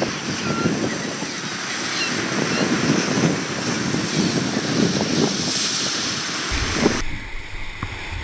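Wind buffeting the microphone over a rushing, surf-like noise, fluttering unevenly. About seven seconds in it switches abruptly to the rush of whitewater rapids around a raft.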